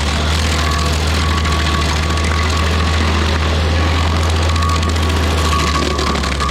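Rayco RG50 stump grinder running steadily at a constant speed: a deep engine hum with a thin steady whine and a spread of machine noise over it.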